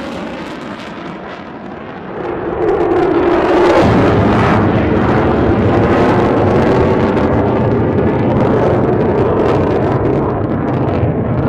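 Lockheed Martin F-22 Raptor's twin jet engines passing overhead, getting much louder about two and a half seconds in and staying loud, with a deep rumble and a rough crackle.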